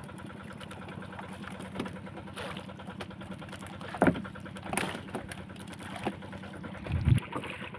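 A small engine running steadily at idle, with a fast, even beat, and a few knocks on the boat about halfway through and again near the end.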